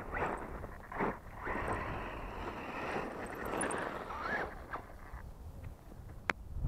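Axial Yeti radio-controlled buggy driving over loose gravel: its tyres crunching and scattering stones, with wind on the microphone. A short rising whine from its electric motor as it passes close about four seconds in, and a sharp tick near the end.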